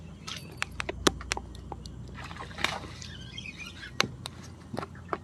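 Fishing rod and reel working a hooked fish from a boat: about a dozen sharp clicks and light taps at uneven intervals, over a low steady hum.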